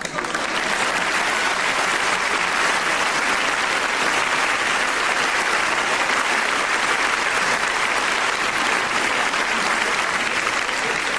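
Theatre audience applauding, starting suddenly and holding steady as a dense clapping.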